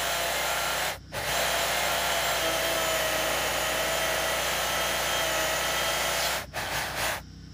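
Stihl corded electric chainsaw running and cutting through the end of a timber beam. The motor noise drops out briefly about a second in, then stutters and stops near the end.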